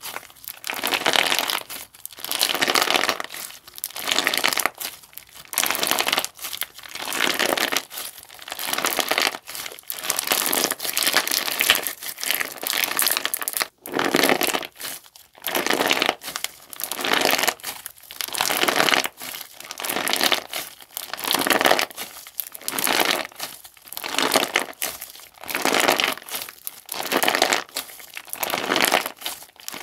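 Clear-base crunchy slime squeezed and pressed by hand, crackling and popping in repeated bursts about once a second.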